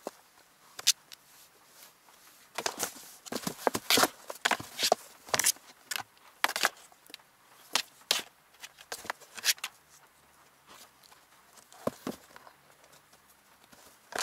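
A kitten scrabbling and pouncing inside a cardboard box, its claws scratching and its paws knocking on the cardboard in quick, irregular bursts. The bursts are densest in the middle and thin out near the end.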